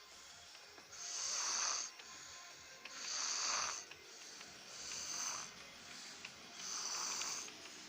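A person snoring: four slow breaths about two seconds apart, each a hissing, wheezy rasp lasting about a second.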